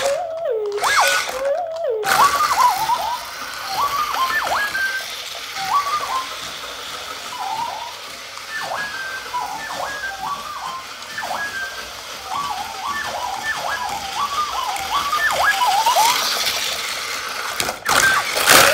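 Hasbro D-O remote-control droid toy making its electronic droid beeps from its small speaker: a rapid string of short chirps that glide up and down in pitch, with a few longer falling tones near the start and the end. Under them runs a steady hiss from its drive motor and wheel as it drives about.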